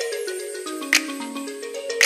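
Background music: a tinkly melody of short stepped notes over a sharp percussive hit about once a second.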